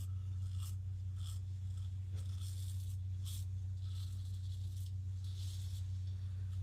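Vintage GEM push-button single-edge razor scraping through lathered stubble in a series of short strokes, about one or two a second, over a steady low hum.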